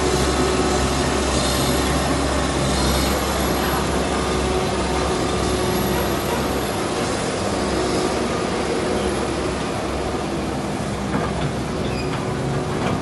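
Heavy diesel machinery, likely an excavator, running steadily with a low engine hum and a constant mechanical drone. The low hum eases off about halfway through.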